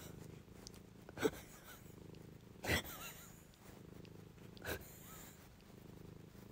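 Domestic cat purring steadily, broken three times by short, sharp bursts of noise.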